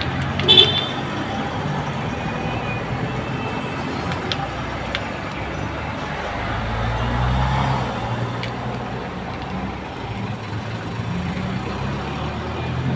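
Steady road traffic noise with a low rumble, swelling as a vehicle passes about seven seconds in. There is a brief high-pitched squeak or toot about half a second in.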